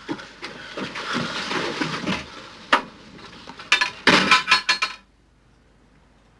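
Movement noise, then sharp clinks and a rattle of glass as a door with glass panes is shut. The sound cuts off abruptly into faint room tone.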